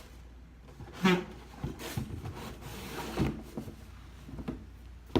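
Handling noise as a sneaker and its box are turned over by hand: rubbing and scuffing with a few light knocks, the loudest about a second in, and a sharp knock near the end.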